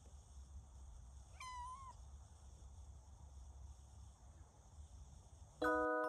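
Tabby-and-white kitten giving one short, high meow about a second and a half in, over a low steady rumble. Near the end several ringing glockenspiel-like chime notes come in.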